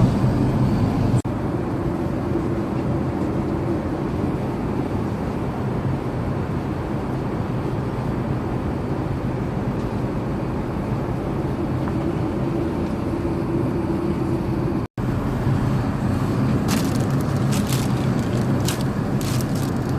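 Steady cabin noise of an Airbus A380 in flight: an even rushing noise with a low hum. There is a brief dropout about 15 seconds in, and a few light clicks near the end.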